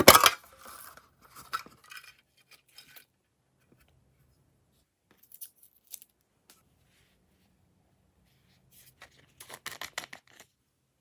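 Slime being handled and mixed: sticky crackling and popping in short bursts. The loudest burst is at the very start, with scattered clicks in the middle and another crackly burst near the end.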